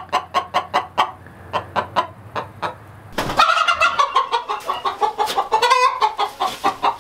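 Hen clucking in a steady run of short clucks, then breaking into louder, drawn-out cackling calls from about three seconds in.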